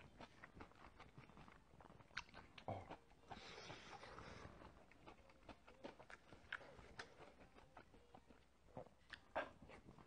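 Faint close-miked eating sounds: a spoon clicking against the bowls and chewing of mixed bibimbap, with a brief hissy rustle about three to four seconds in.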